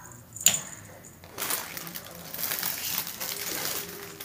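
A sharp click, then patchy rustling and swishing as a feather wand cat toy is swept about over a rug.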